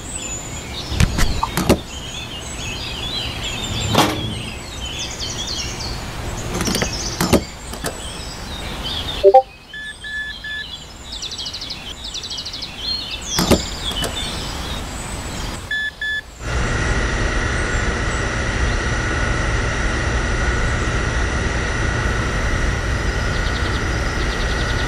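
Fuel dispenser refuelling sounds: a few knocks and short electronic beeps, then about two-thirds of the way in the pump starts running with a steady hum and whine as fuel is dispensed. Birds chirp in the background during the first half.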